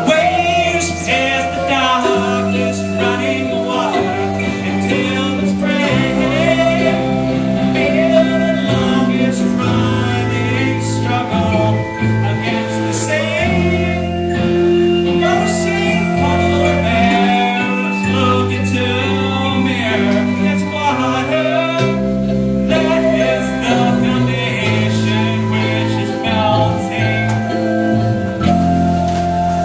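A rock band playing a song live with singing: sung vocals over a bass line that moves every couple of seconds, held pitched notes and frequent percussion hits.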